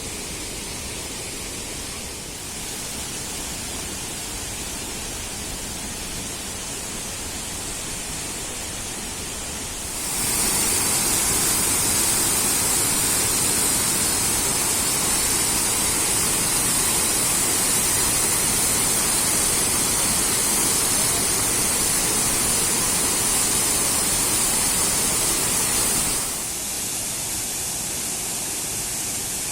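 Steady rush of a mountain stream and its cascades. It is much louder from about ten seconds in until a sudden drop near the end.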